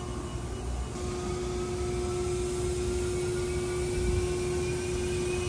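Steady mechanical whine over a rumbling hum of running machinery, with one steady tone that comes in strongly about a second in.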